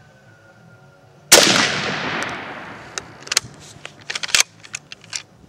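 One shot from a 1953 Hungarian M44 Mosin-Nagant carbine in 7.62x54R, a sharp loud crack about a second in that rings out and fades over a second and a half. It is followed by a quick run of metallic clicks and clacks, the bolt being worked to eject the case and chamber the next round.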